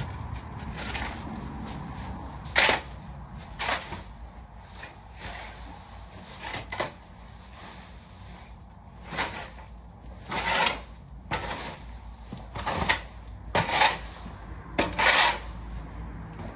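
Straw bedding in a horse's stall being mucked out with a long-handled stable tool, scraped and tossed in about ten short noisy strokes at irregular intervals.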